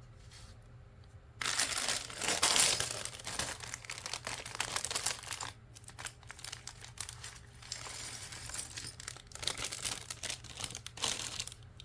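Crinkling and tearing of a bag of LEGO pieces being opened and rummaged, which starts about a second and a half in and carries on in uneven bursts of rustling and crackle.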